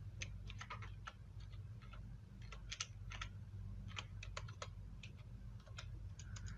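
Computer keyboard typing: irregular runs of quick keystroke clicks as a short name is typed, over a steady low hum.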